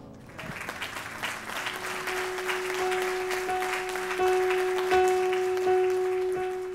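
Crowd applauding, building over the first few seconds. Soft music comes in about two seconds in, one note repeated roughly every 0.7 s.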